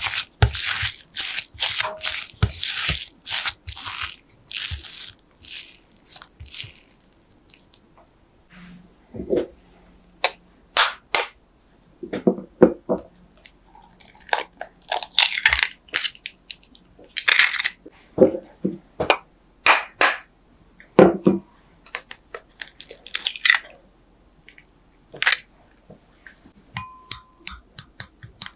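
A silicone spatula presses and scrapes soft choux pastry dough in a glass bowl, in quick strokes for about the first seven seconds. Then come a few separate knocks and cracks as eggs are broken over a small glass bowl. Near the end a fork beats the eggs in rapid clinks against the glass.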